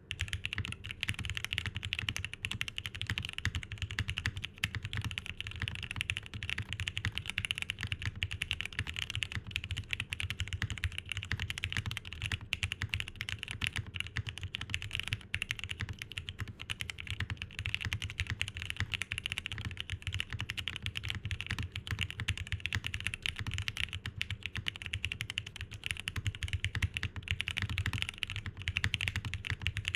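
TGR Jane v2 ME mechanical keyboard, O-ring mounted, with lubed vintage Cherry MX Black linear switches, being typed on fast and without pause.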